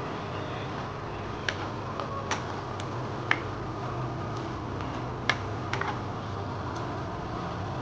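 Squid rings frying in oil in a pan, a steady sizzle. Over it come irregular sharp clicks as a spatula stirs and knocks against the pan, the loudest about three and five seconds in.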